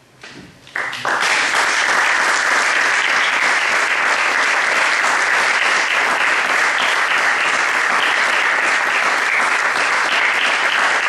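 Audience applause breaking out: a few scattered first claps, then full, steady applause from about a second in.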